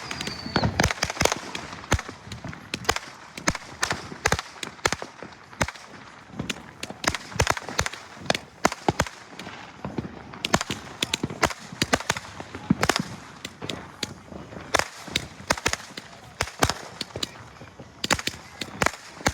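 Fireworks going off in a rapid, irregular string of sharp bangs and crackles, several reports a second, with a few louder booms among them.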